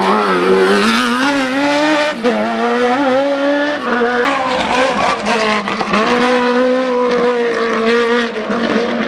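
Race car engine running hard on a hillclimb, its pitch climbing and then dropping sharply at gear changes about every two seconds, then holding steady near the end.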